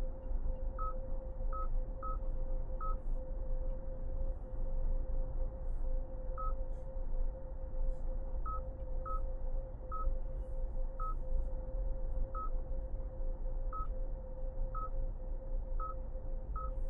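2025 Hyundai Santa Fe driving: a steady low road-and-drivetrain rumble with a constant tone above it, and about fourteen short high beeps at uneven intervals.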